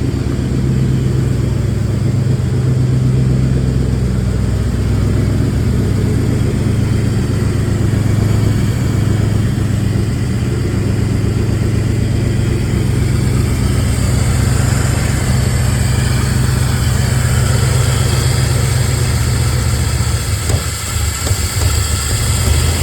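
Car engine idling roughly, its level dipping and wavering unevenly about twenty seconds in. The owner takes the rough running for exhaust leaks together with a timing, cylinder head, distributor, cam position sensor or MAP sensor fault.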